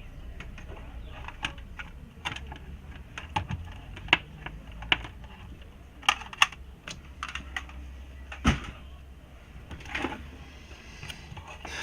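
Typing on a computer keyboard: irregular keystrokes and clicks, a few of them louder, over a steady low hum.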